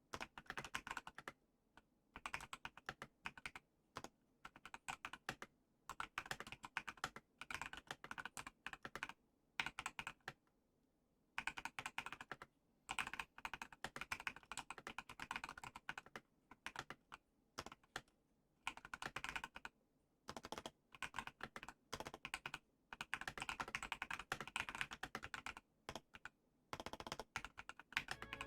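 Typing on a custom 60% mechanical keyboard built with Everglide Aqua King linear switches on a polycarbonate plate in a frosted acrylic case: quick bursts of keystroke clacks with brief pauses, and a longer pause about ten seconds in.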